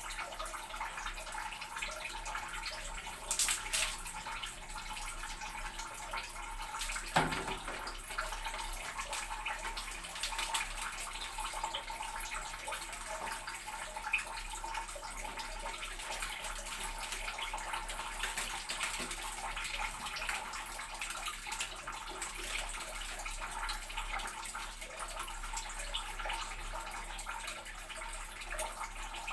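Water running steadily from a tap, with a single sharp knock about seven seconds in.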